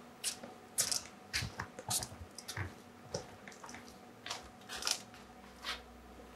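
Faint footsteps of a performer in sneakers crossing a stage floor: irregular light scuffs and clicks.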